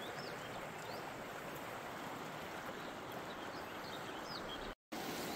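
Steady rush of a river running over fast, shallow riffles, with a few faint high chirps. The sound cuts out for a split second near the end.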